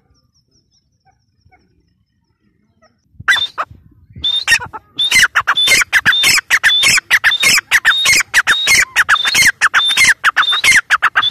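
Grey francolin calling: after about three seconds of quiet, loud harsh notes begin. They settle into a fast run of short repeated call notes, several a second.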